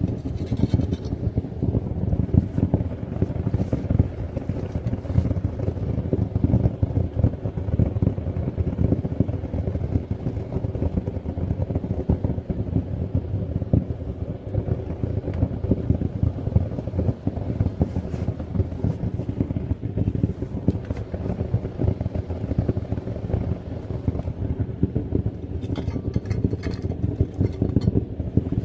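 Propane furnace burner running with a steady, low, rough rumble. A few light clicks come near the end.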